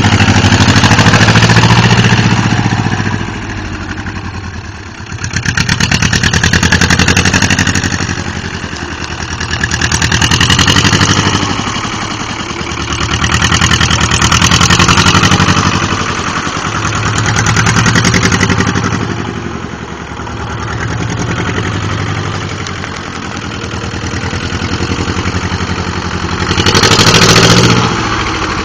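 Fiat 211 'La Piccola' tractor engine running as the tractor drives, its sound swelling and fading every few seconds and loudest near the end.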